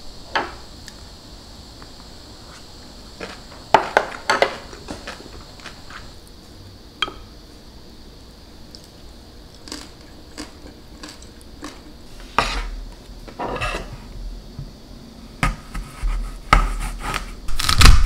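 A wooden spoon scraping and tapping inside an earthenware ttukbaegi pot of cooked rice, in scattered short scrapes and clicks. Louder knocks come near the end.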